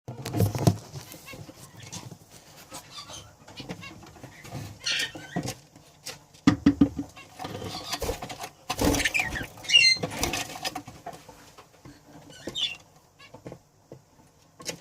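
A pair of budgerigars chirping and warbling in short bursts, mixed with scattered clicks, scuffs and a few louder knocks.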